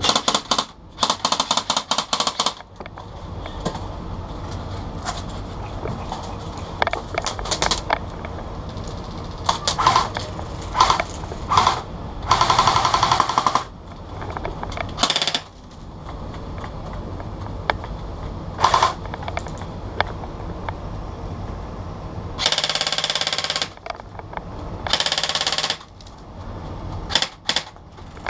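Airsoft guns firing: several rapid automatic bursts of sharp clicks, with single shots in between.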